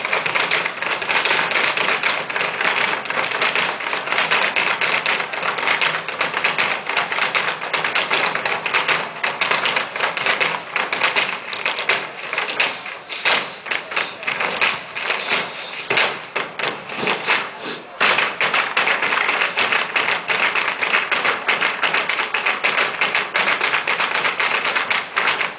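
Folklórico dancers' zapateado: rapid, continuous heel-and-toe stamping and tapping of shoes on a stage floor, with dance music faint underneath.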